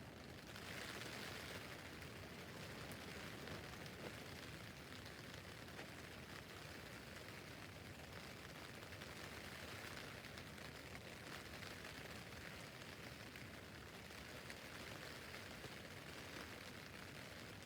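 Steady rain falling on a tent roof: an even hiss of many small drop taps, a little heavier from about a second in.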